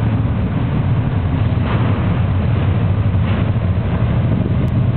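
Harley-Davidson motorcycles' V-twin engines running, a steady low sound.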